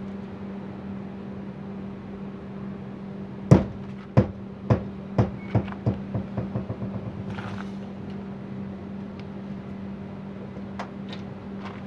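A 14-pound sledgehammer swung on a hinge from 150 mm strikes a caravan's fibreglass wall about three and a half seconds in, then bounces against it again and again, the knocks coming faster and softer until they die out about three seconds later. A steady low hum runs underneath, and a couple of light clicks come near the end.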